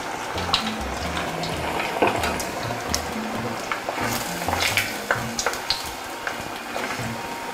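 Breaded chicken leg deep-frying in hot oil in a stainless steel saucepan: a steady crackling sizzle, with occasional sharp clicks as metal tongs turn the piece against the pot.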